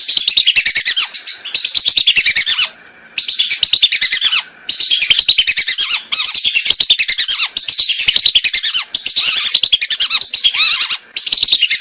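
Whistling duck calls: loud, rapid runs of high whistled notes, each note falling in pitch, repeated in phrases with brief pauses.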